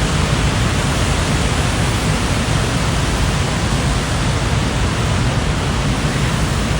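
Loud, steady roar of rushing floodwater.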